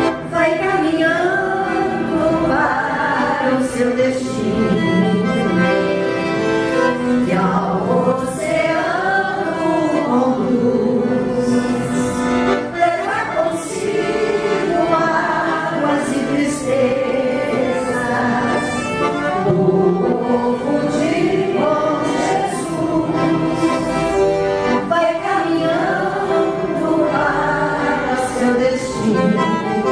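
Music: a song with sung vocals and a choir over instrumental accompaniment.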